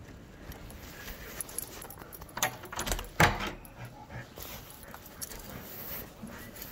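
A bunch of keys jangling while a key works an apartment door's lock, with a sharp clack a little after three seconds in as the lock or latch releases and the door is opened.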